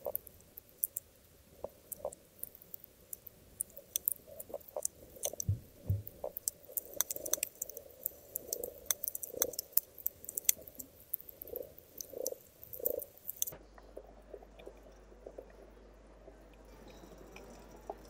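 Underwater recording of a coral reef: a crackle of sharp clicks with irregular low grunts and knocks from fish. It cuts off suddenly about three-quarters of the way through, leaving a faint low hum.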